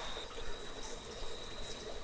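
Insects, likely crickets, keep up a steady high-pitched trill over a soft background hiss of outdoor ambience.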